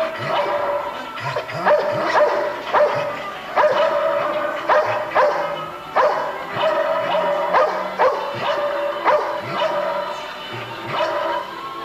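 A dog barking repeatedly, short sharp barks about two a second in irregular runs, over music.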